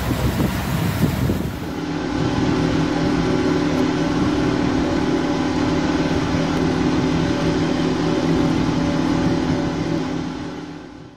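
Boat on the water at speed: wind and water rush for the first two seconds, then a steady boat engine hum with a strong, even pitch, fading out near the end.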